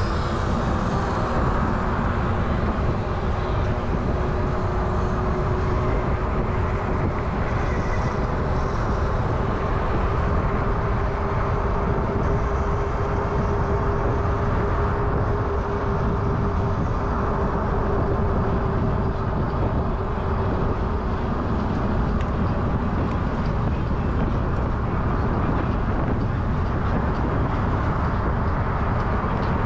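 Wind rushing over an action camera's microphone and road noise from an e-bike riding at speed. A faint steady whine from the electric motor sits under it and fades out after about twenty seconds.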